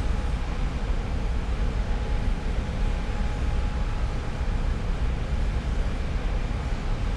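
Steady low rumble and hiss of oil refinery machinery heard close, with faint steady hums at several pitches above it.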